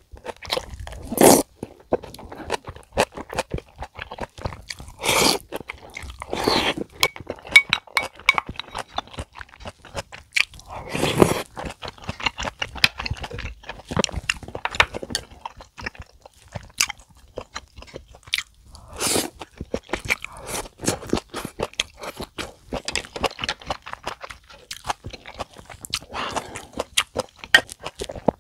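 Close-miked chewing of a big mouthful of meat dumpling topped with kimchi, heard as a dense run of short, sharp mouth clicks and crunches, with a few louder bites now and then.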